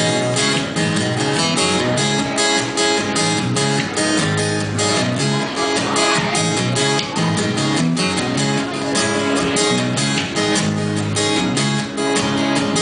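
Two acoustic guitars strummed in a steady rhythm over a bass guitar line, played live as an instrumental passage without vocals.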